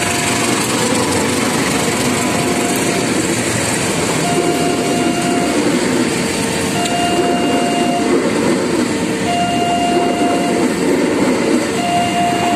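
A diesel-hauled passenger train passing close by: the locomotive goes past, then the coaches' wheels rumble over the rails. A two-tone signal alternates steadily between a higher and a lower note, each held for about a second and a quarter.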